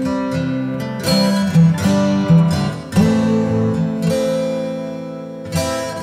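Music: an acoustic guitar plucking notes and chords that ring out.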